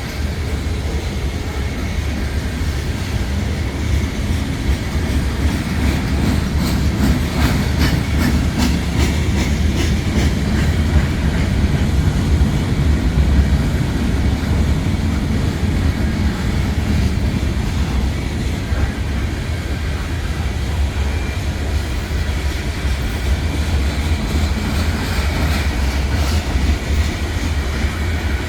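Freight train rolling past: a steady low rumble of steel wheels on rail, with a run of sharp clicks over the rail joints about six to eleven seconds in.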